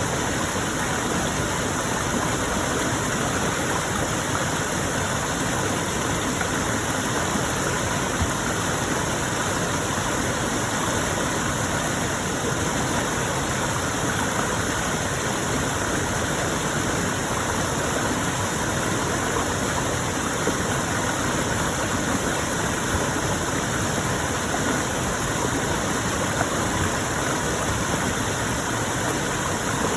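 Stream water flowing, a steady unbroken rush.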